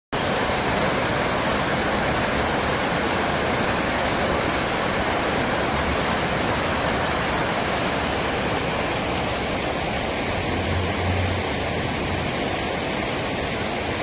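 Dancing fountain's many vertical water jets shooting up and splashing down into the basin: a steady rushing, splashing noise, a little softer in the last few seconds.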